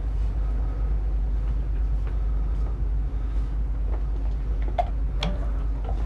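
Steady low rumble of a ship's engines, with a few faint clicks near the end.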